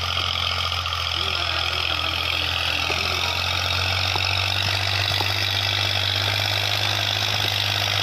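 Massey Ferguson tractor's diesel engine running steadily with a low, even note as it pulls a heavily loaded trolley, the engine working under load.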